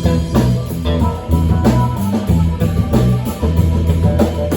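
Live blues-rock band playing between sung lines: guitar and bass over a drum kit, with no vocals.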